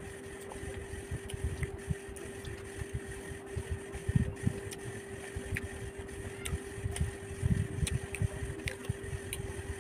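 A person chewing and eating food close to the microphone: irregular soft thumps with small wet clicks, over a steady hum.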